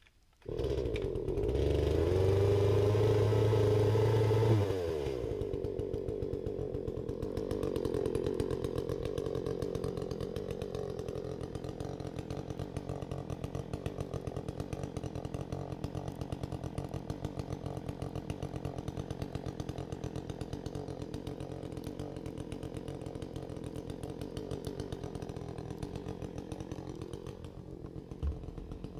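Chainsaw revving at high speed for about four seconds, then dropping back and running steadily at a lower speed.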